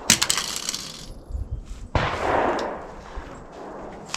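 A Glock 17 9mm pistol fires twice, about two seconds apart. Each sharp report is followed by a decaying echo; the first has a brief bright ringing tail.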